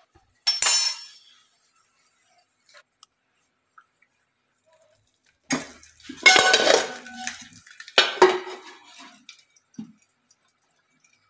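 Steel kitchen vessels clinking, then a brief loud sizzle and hiss about six seconds in as oil is poured onto a hot charcoal in a small steel cup to smoke tandoori chicken. About two seconds later an aluminium lid clanks down over the steel bowl.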